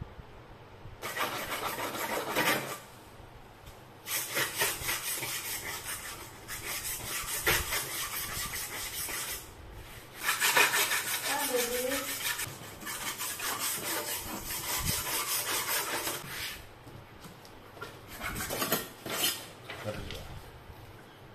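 Abrasive flap disc held in the hand and rubbed fast over a model boat's painted surface, sanding it down with rapid scratchy strokes in several bursts of a few seconds, broken by short pauses.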